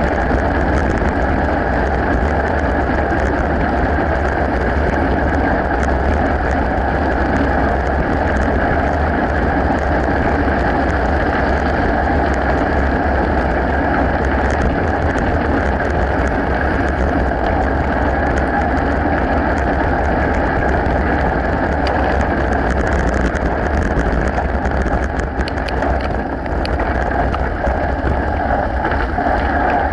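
Mountain bike tyres rolling over a gravel path, a steady rushing noise, with wind rumbling on the microphone.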